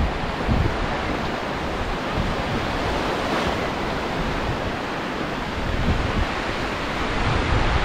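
Steady wash of sea surf, with wind buffeting the microphone in irregular low gusts.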